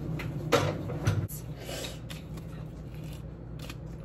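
Kitchen handling noises while seasoning chicken on a counter: two light knocks about half a second apart, then a short shaking rustle like a spice shaker, over a low hum that stops about a second in.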